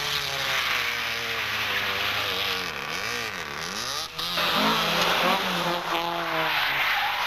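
Rally car engine revving, its pitch dipping and rising repeatedly as the driver lifts and gets back on the throttle, over a rushing noise. About four seconds in, the sound cuts abruptly to another rally car running louder at high revs.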